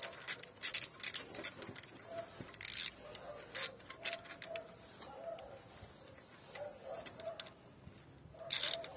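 Socket ratchet clicking in short, irregular runs as an ignition coil's bolt is tightened gently, with a louder run of clicks near the end.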